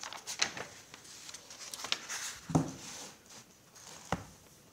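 Pages of a paper notebook being flipped back, rustling, with several light knocks and taps as the pages and notebook are handled.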